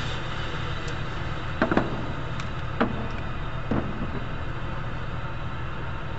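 Steady low hum of an indoor shooting range's background, with three short sharp knocks about a second apart near the middle.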